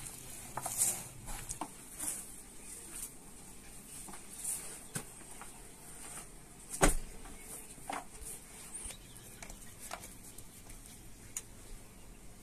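Hands kneading and patting a large ball of bread dough in a plastic basin: soft, irregular pats and presses, with a sharper knock about seven seconds in.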